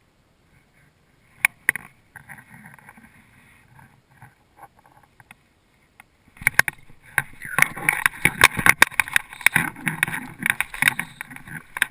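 Water splashing near a boat: two sharp knocks in the first two seconds, then, from about six seconds in, a loud, choppy run of splashes and clatter.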